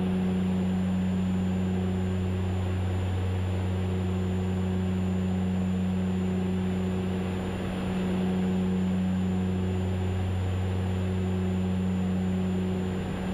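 Steady cockpit drone of a de Havilland Canada DHC-6 Twin Otter's two Pratt & Whitney PT6A turboprop engines and propellers in the climb, a low even hum with an unchanging pitch that dips slightly in loudness about halfway.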